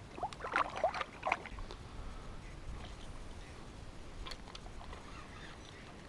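Water splashing and sloshing: a short flurry of splashes in the first second and a half, then only a few faint drips and clicks.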